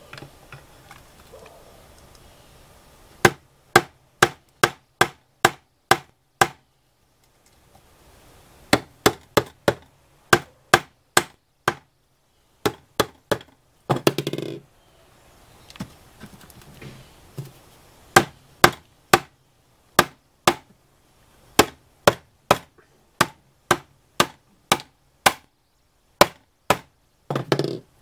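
Small soft-face hammer tapping the handles of screwdrivers wedged under an ignition module's aluminum heat sink, in runs of sharp taps about two a second with pauses between, driving the blades in to break the glued bond. A brief scraping rattle comes a little past halfway and again just before the end.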